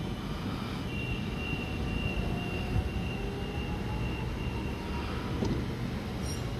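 Double-deck electric suburban train pulling away from the station and moving off, a steady rumble with a high, steady whine for a few seconds from about a second in.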